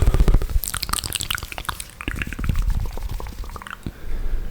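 Wet ASMR mouth sounds close to the microphone: a quick run of saliva clicks, tongue pops and lip smacks, loudest at the start.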